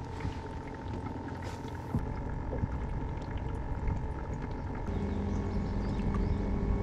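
Water lapping and splashing against a small aluminum fishing boat's hull, with wind on the microphone and a faint steady whine. A low steady hum sets in about five seconds in.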